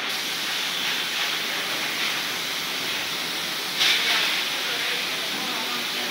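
Air spray gun hissing steadily as it sprays a fine mist of coating, with a short louder blast about four seconds in.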